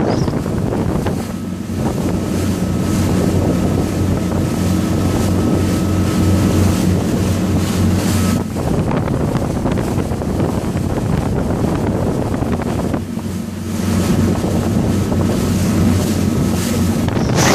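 Motorboat engine running steadily at speed, with water rushing in the wake and wind buffeting the microphone. The engine hum dips briefly twice.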